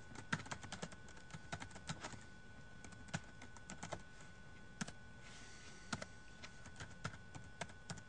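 Typing on a computer keyboard: irregular key clicks in short runs, with a brief pause a little past the middle.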